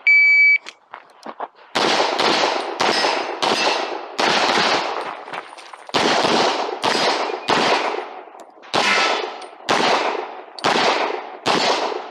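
Shot timer's electronic start beep, then a string of about fifteen pistol shots, mostly about half a second apart, with short breaks about four and eight seconds in, during a timed practical-shooting course of fire.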